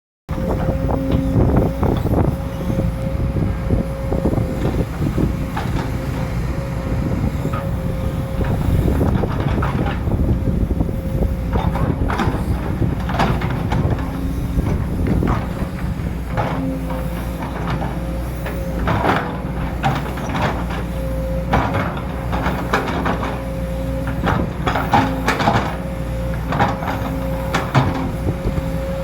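Sumitomo SH210 hydraulic excavator digging: its diesel engine runs steadily under a constant whine, with repeated clanks and knocks from the bucket and linkage.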